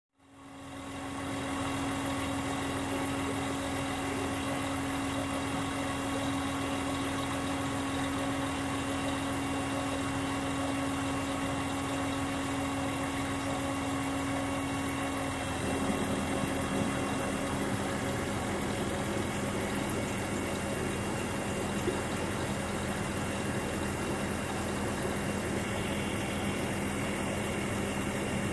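A steady machine drone whose hum drops slightly in pitch about halfway through.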